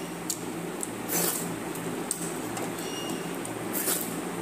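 Eating by hand from steel bowls of watered rice: two brief wet, rustling noises, about a second in and near the end, over a steady low hum.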